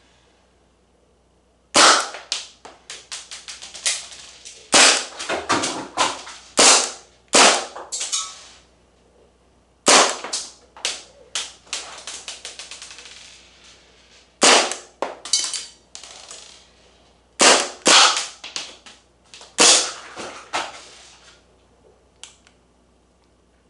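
Maruzen Walther PPK airsoft pistol firing, a sharp crack per shot, in quick strings of several shots with short pauses between them, from about two seconds in until about twenty-two seconds in.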